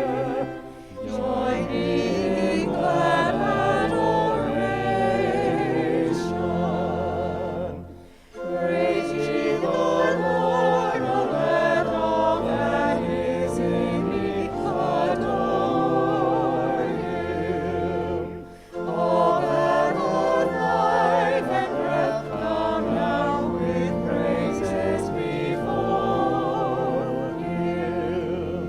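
Choir singing a hymn in long phrases, with short breaks between phrases.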